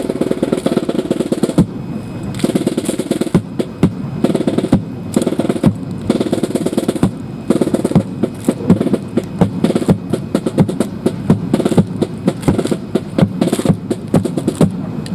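Drum-led music played over loudspeakers, with many sharp wooden clacks, typical of drill rifles being slapped and caught during a fancy drill routine.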